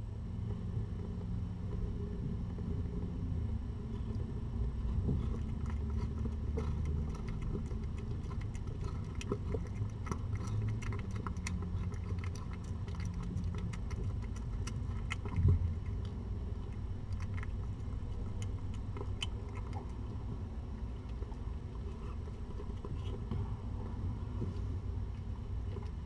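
Calico mother cat eating wet food from a stainless steel bowl: many small wet chewing clicks through the middle, over a steady low rumble, with one thump about fifteen seconds in.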